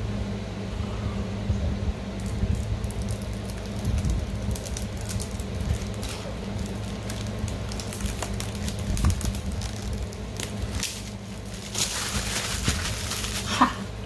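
Scattered clicks and crackles, busiest near the end, over a steady low hum.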